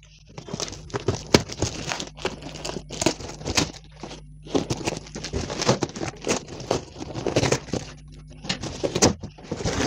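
A cardboard box wrapped in plastic film and packing tape being cut with scissors and torn open: an irregular run of crinkling, crackling and ripping.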